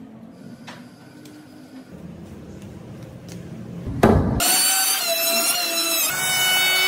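A woodworking power tool's motor starts with a sudden loud burst about four seconds in and then runs with a steady high whine, after a few seconds of faint workshop noise.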